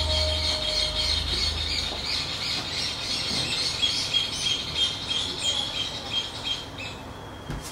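Rapid, high-pitched bird-like chirping that thins out and fades toward the end, over a low musical drone that dies away in the first couple of seconds.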